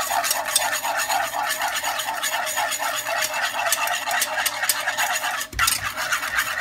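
Wire whisk beating heavy cream and passion fruit pulp in a small saucepan, the wires clicking and scraping against the pan in quick, even strokes, several a second, with a short break about five and a half seconds in.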